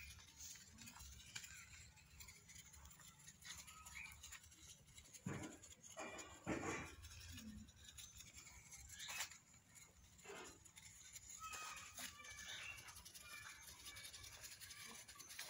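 Goats licking and nibbling powdery feed off a hard floor: faint soft clicks and scrapes of their mouths, with two louder short rushing sounds about five and a half and six and a half seconds in.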